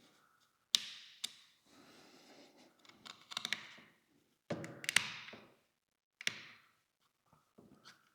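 Sharp clicks and knocks of small hard parts and tools being handled and set down on a work surface while a camera body is put back together, about half a dozen separate taps with a cluster in the middle.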